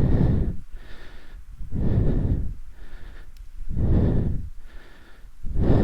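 A man breathing hard, with heavy exhalations about every two seconds that buffet the microphone, from the effort of walking with a fully fuelled paramotor.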